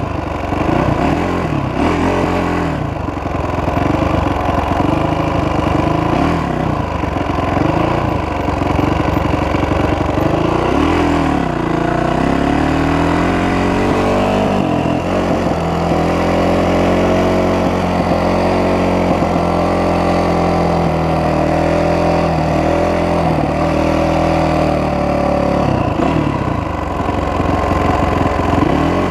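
Honda 450 dirt bike's single-cylinder four-stroke engine being ridden, its pitch rising and falling with the throttle. From about the middle it holds a steadier pitch for some ten seconds, then rises and falls again near the end.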